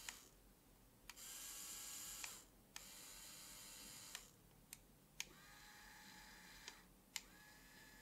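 Small yellow DC gear motors whirring faintly in short runs of one to two seconds each, about four times. Each run is switched on or off with a click as buttons on the 2.4 GHz remote control are pressed.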